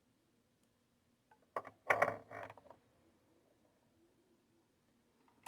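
Brief handling noise: a cluster of clicks and rustling about one and a half seconds in, lasting about a second, with a faint click near the end.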